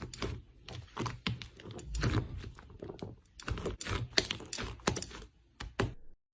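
Slime being squeezed and worked by hand, giving quick, irregular clicks and crackles. It cuts off suddenly near the end.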